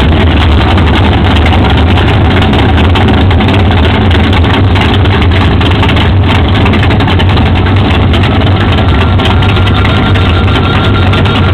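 Drag-racing muscle car engines idling loud and steady as the cars creep up to the starting line, a deep continuous rumble with no revving.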